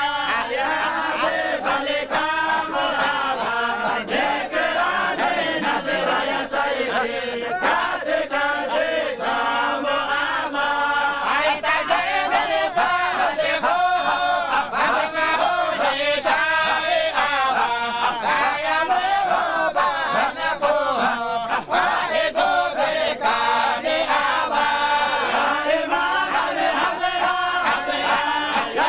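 A group of men chanting together in unison without instruments, a Sufi dhikr chant that runs on without a pause.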